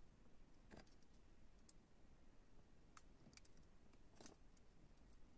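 Near silence with faint, scattered small clicks: hands handling the plastic housing of an OBD diagnostic cable.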